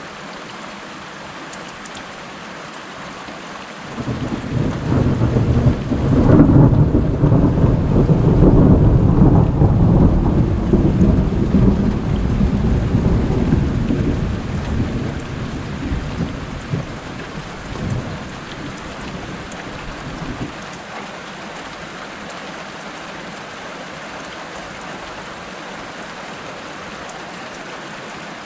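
Steady rain falling. About four seconds in, a loud roll of thunder builds, peaks a few seconds later and rumbles away unevenly over some fifteen seconds, and then the rain carries on alone.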